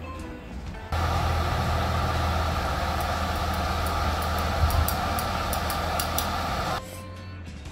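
Portable butane gas stove burning under a pot of ramen at a rolling boil, a steady rushing noise with a low rumble, and light metal clinks from the stirring utensil from about three seconds in. It starts and stops abruptly, with quiet background music before and after.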